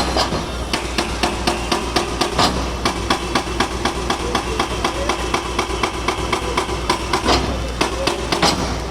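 Old bridge concrete being broken with rapid repeated hammer blows, about four a second, over a steady low drone.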